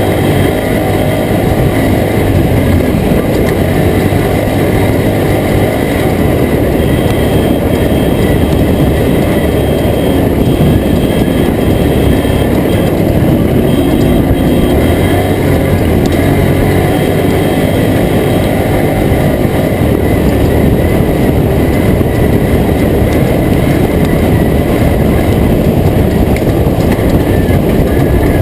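Toyota Tacoma race truck running hard over rough off-road terrain: loud, steady engine and driving noise that keeps up without a break.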